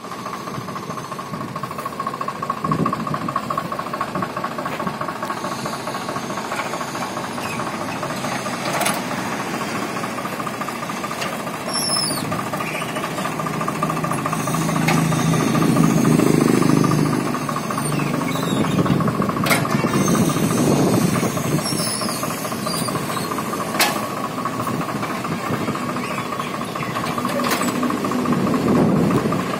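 Tractor diesel engine running steadily, louder for a couple of seconds about halfway through, with a few sharp metallic clanks from the mounted two-bottom mechanical reversible plough as it is worked by its lever.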